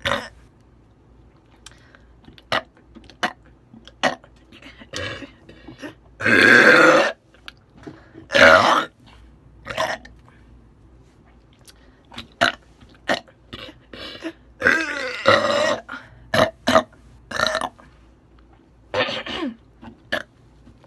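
A woman burping over and over. Several long, loud belches, the loudest a little after six and eight seconds in and again around fifteen seconds, are mixed with many short, sharp little burps and clicks in between.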